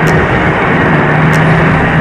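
Self-propelled forage harvester running steadily while chopping grass for silage and blowing it into a trailer alongside: a constant loud machine noise with a steady low hum underneath.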